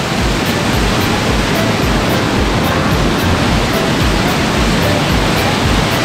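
Waterfall pouring, a loud, steady, even rush of water. Background music with a steady beat of about two a second runs underneath.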